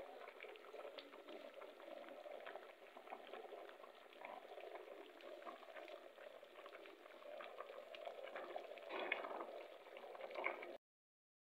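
Rice and water boiling in an open pot, a faint steady bubbling full of small pops, as the last of the water cooks off before the rice is left to steam. It cuts off suddenly near the end.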